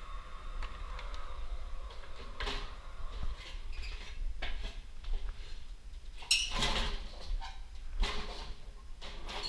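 Handling noise of construction work: scattered knocks and scrapes as tools and a stepladder are moved about, over a steady low rumble on the body-worn microphone.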